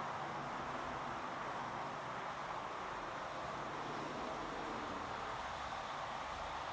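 Model railway diesel locomotive and its goods wagons running along the layout's track: a steady rolling rush of wheels on rail with a faint motor hum underneath.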